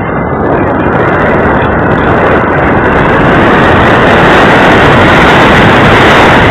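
Loud rushing wind buffeting an RC glider's onboard camera microphone, growing louder and fuller in the first few seconds as the glider dives steeply, then holding steady.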